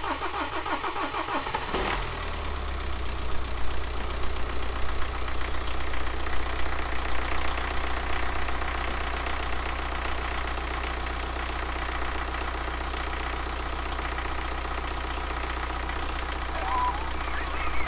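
BMW N47 four-cylinder diesel engine cranking on the starter, then catching about two seconds in and settling into a steady idle. The long cranking is needed because the fuel rail and pump had been run dry.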